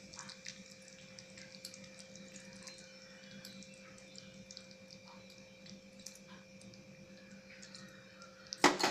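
Thick rava kesari bubbling softly in a steel kadai, faint scattered pops over a steady hum. Near the end the metal ladle clatters and scrapes loudly against the pan.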